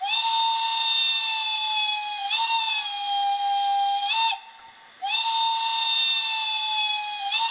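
Digital sound-decoder steam whistle of an ESU H0 model of the BR 78 (Prussian T18) steam tank locomotive: two long blasts of a steady whistle tone, the first about four seconds with a slight dip in pitch midway, the second about two and a half seconds after a short pause. Each blast lasts as long as the F2 function key is held, with no fixed short or long whistle.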